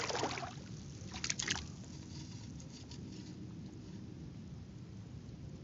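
Water splashing and sloshing: a burst at the start and a second, shorter one about a second in, then only a low steady background.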